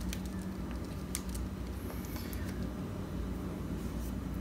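A few faint clicks and light handling rustle from hands gripping and turning a Sony a6600 camera body with its lens, over a steady low hum.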